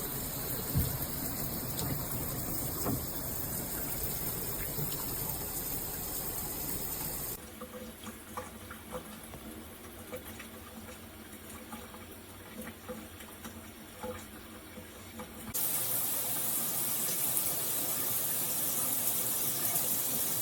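Water spraying from a shower head in a steady hiss. About seven seconds in it cuts abruptly to a much quieter stretch with scattered small taps, then about eight seconds later cuts back to a loud steady spray.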